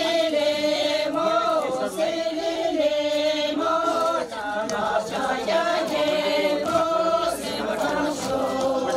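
A group of voices singing together in unison, a Sherpa shyabru song, the melody moving in long held notes.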